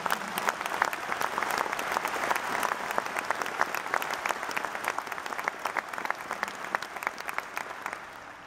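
Large audience applauding, a dense steady patter of many hands clapping that dies away near the end.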